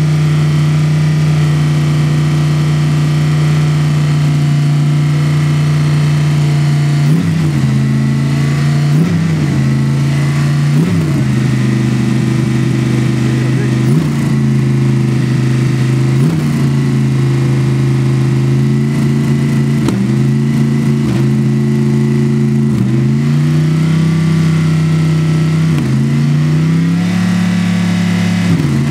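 Mercedes-Benz SLS AMG GT3 race car's 6.2-litre V8 running at a steady fast idle, then, from about seven seconds in, blipped on the throttle about ten times, one short rev roughly every two seconds, each falling straight back to idle.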